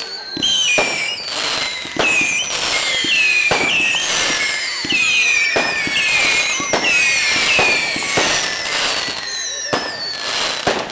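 Fireworks going off in quick succession: repeated sharp bangs with many overlapping whistles that fall in pitch.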